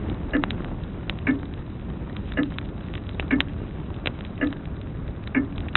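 Grandfather clock ticking steadily about once a second, over a wood fire crackling with irregular sharp pops and a low steady hiss.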